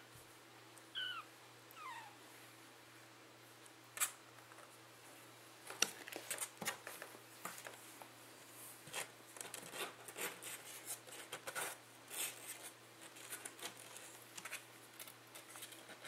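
Nearly four-week-old kittens mewing and wrestling. There are three short, falling mews in the first two seconds, then a run of quick scratching and scuffling as they scramble over each other with their claws on the towel and cardboard box.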